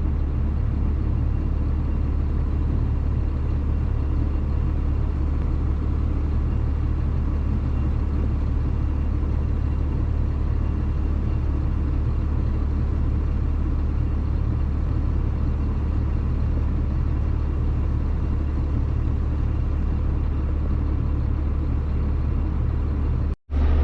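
John Deere farm tractor's diesel engine running steadily, a low, even drone that does not change. The sound cuts out abruptly for a moment near the end.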